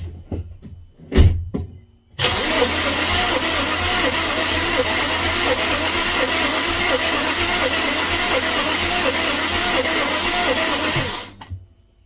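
A few knocks, then a BMW N52 inline-six cranked over on its starter for about nine seconds without firing, a steady even churn that stops suddenly near the end. This is a compression test on cylinder five, which reads almost zero: about 30 psi where about 200 is expected.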